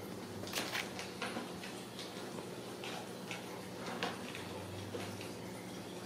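Ragdoll kittens scampering and playing on a tile floor and rug: scattered light, irregular clicks and taps of paws and claws, over a faint steady hum.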